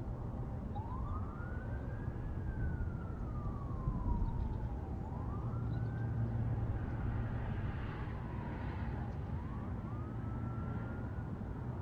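Emergency vehicle siren wailing, its pitch rising and falling slowly several times, over a steady low rumble.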